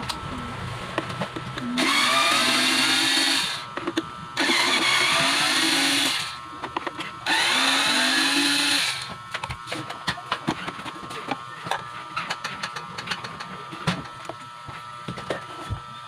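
Cordless electric screwdriver running in three bursts of about one and a half seconds each, backing screws out of a vacuum cleaner's plastic motor housing. After that, light clicks and knocks of plastic parts and screws being handled.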